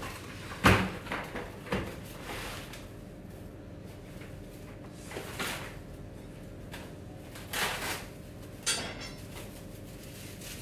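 Cling film being handled at a table: a couple of sharp knocks as the cardboard box is set down, then a few short rustles as the plastic film is pulled off the roll and pressed around a ball of pastry dough.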